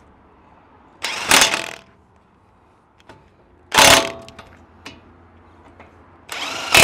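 Impact wrench running in three short bursts, hammering the bottom bolts home: about a second in, about four seconds in, and near the end.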